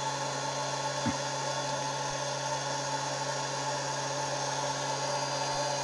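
Wood gasifier's air blower running steadily: a constant hum with an even hiss over it, as it pushes air through the gasifier to feed the flare. A faint tap sounds about a second in.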